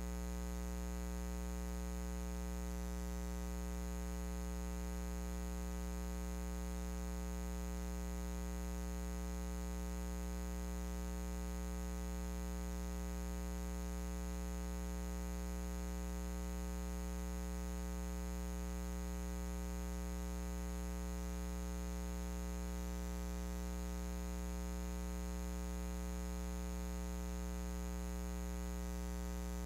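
Steady electrical mains hum with a ladder of overtones, strongest in the low bass, unchanging throughout; no speech or other sound is heard over it.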